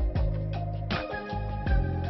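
Background music with a steady beat: drum hits a little under a second apart over sustained bass notes and held melody tones.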